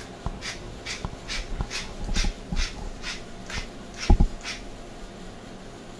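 Wooden pepper mill grinding white peppercorns: a rapid rasping crunch with each twist, about three a second, stopping about four and a half seconds in. A couple of heavy knocks come around four seconds in.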